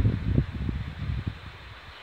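A gust of wind buffeting the microphone, a ragged low rumble that dies down after about a second and a half, leaving a faint steady hiss.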